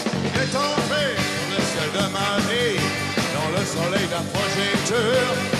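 Live rock and roll band playing, with a bending melody line over steady bass and drums.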